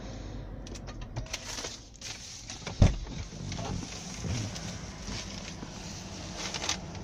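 Driver's door of a Toyota Land Cruiser being opened from inside as the driver climbs out: clicks and rustling of handling, with a single loud thud a little under three seconds in.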